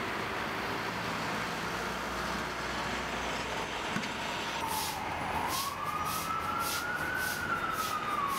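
City traffic noise, then about halfway an emergency vehicle siren begins wailing, its pitch dipping, rising and slowly falling, with a regular high pulsing hiss about two to three times a second.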